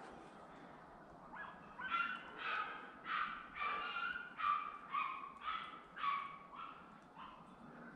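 A jagdterrier barks in a quick regular run, about two barks a second, starting about a second and a half in. It is a hunting terrier giving tongue during a wild boar drive.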